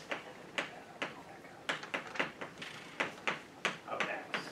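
Chalk tapping and scratching on a blackboard as words are written: an irregular run of short, sharp taps, two or three a second.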